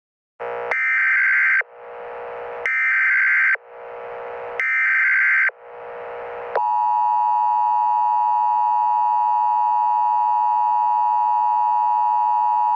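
Emergency Alert System tones: three data bursts of about a second each, a second apart, then the steady two-tone attention signal starting about six and a half seconds in.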